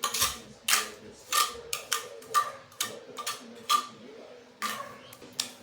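Thin-set mortar being buttered onto the back of a floor tile with a small metal tool: about a dozen short scraping strokes, roughly two a second, with a brief pause past the middle.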